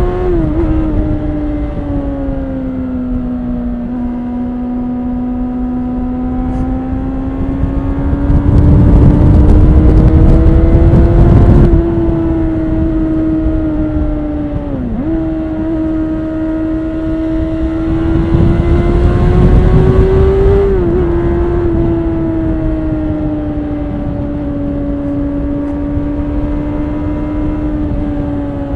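2013 Honda CBR600RR's inline-four with stock exhaust, running at steady road revs from the rider's backpack. Its pitch drifts gently up and down, with quick dips about a second in and again midway. A louder stretch under more throttle comes about a third of the way through and cuts back abruptly.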